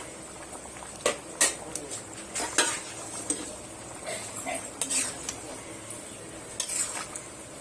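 Metal utensil clinking and scraping against a cooking pot in a handful of sharp, irregular knocks as pieces of katla fish are put into the boiling curry and stirred.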